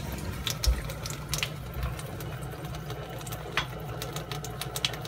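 Under-counter water ionizer running with water flowing through it: a steady low hum under the rush of the water, with a few light clicks.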